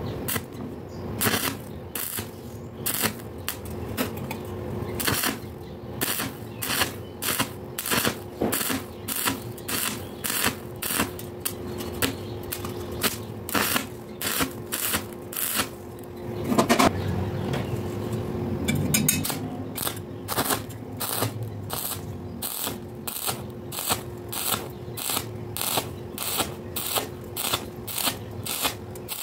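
Stick (arc) welding electrode on thin square steel tube, the arc crackling in short bursts about twice a second as it is struck and broken again and again, with one longer run of arc over a second long about midway. A faint steady hum lies underneath.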